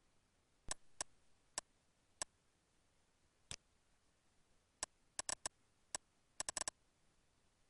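Computer mouse clicking: about fourteen sharp, separate clicks at an uneven pace, with a quick run of four near the end.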